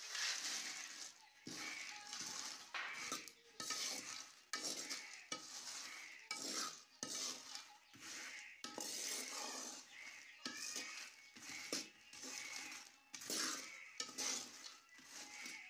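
In-shell peanuts poured into a metal karahi of hot sand, then stirred with a metal spatula: a rattling scrape of shells and sand against the pan, in strokes about once a second.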